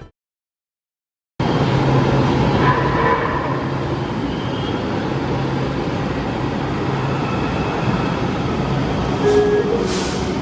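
After about a second of silence, an LA Metro light rail train running: a steady rumble with a constant low hum and a few brief higher tones over it.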